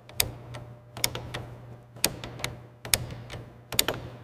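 Ratchet wrench clicking as it is worked on a metal fitting: a dozen or so sharp clicks at uneven spacing, some in quick pairs, over a steady low hum.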